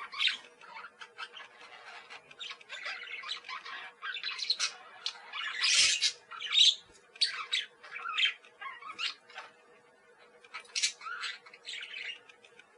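Parakeets calling: a busy run of short, high calls, loudest about halfway through.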